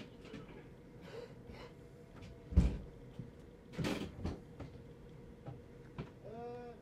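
A single heavy thump about two and a half seconds in, then a cluster of knocks and rattles a second later, a click, and a brief pitched sound near the end, over a faint steady hum.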